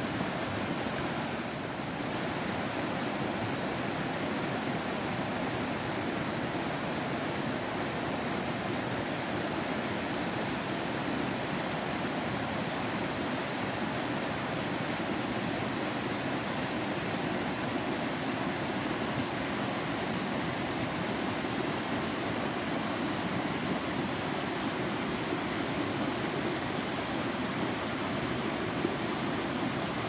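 Mountain creek rushing over small rock cascades, a steady, even rush of water.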